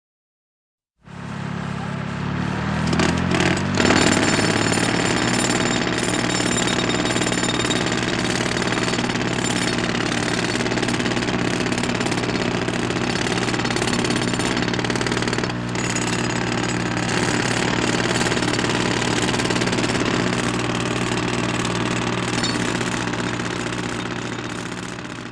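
A loud machine starts up about a second in, rising in pitch for its first few seconds, then runs steadily and fades out near the end.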